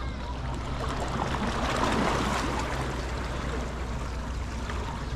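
Water splashing and churning, swelling about two seconds in and then settling.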